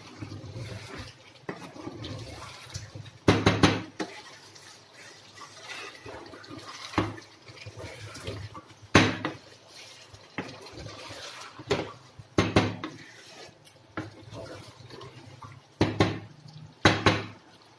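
Wooden spatula stirring chicken in sauce in a stone-coated nonstick frying pan, knocking and scraping against the pan at irregular intervals every few seconds, over a steady sizzle as the korma is fried with the yogurt.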